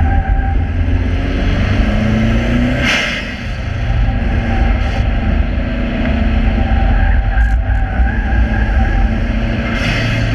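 Subaru Impreza's flat-four boxer engine running hard round a circuit, its pitch climbing, then dropping briefly about three seconds in with a short hiss before pulling again; another short hiss comes near the end. Heavy low rumble of wind on the outside-mounted microphone lies under it.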